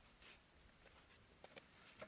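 Faint, scattered scrapes and ticks of a small hatchet's blade scratching lines into dry, packed dirt.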